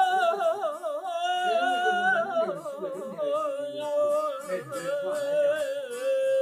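A man singing a long wordless mugham melisma in the khanende style, full of rapid vocal trills, its line sinking slowly in pitch and ending on a held note about six seconds in. Faint regular plucked strokes, typical of a string instrument, accompany it from about halfway through.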